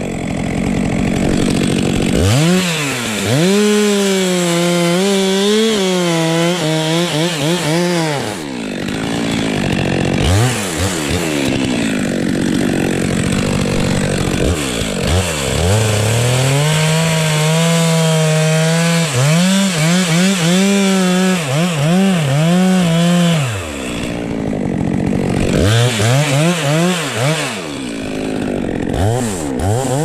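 Stihl MS 462 C two-stroke chainsaw running at high revs while cutting into a spruce trunk. Its pitch dips under load and sweeps back up as the throttle is eased off and opened again, several times.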